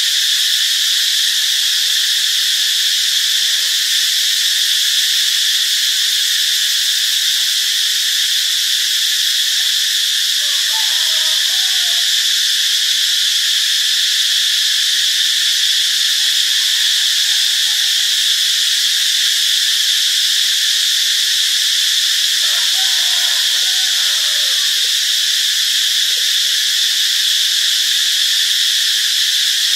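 A cicada calling: one loud, steady, unbroken high-pitched buzz that never pauses.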